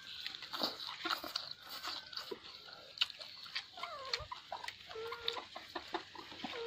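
Eating by hand from a steel plate: small crunches, smacking and clicks of fingers and food against the plate. A few short wavering pitched calls come in the second half.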